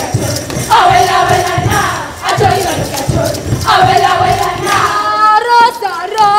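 A group of dancers chanting a Pokot traditional song in short, loud repeated phrases over low rhythmic beats. From about five seconds in, a single high voice sings a wavering line.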